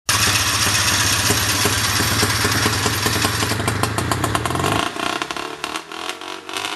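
A 500cc two-stroke Ski-Doo snowmobile engine in a home-built off-road buggy running steadily at raised revs, then dropping back to a quieter, uneven idle about five seconds in.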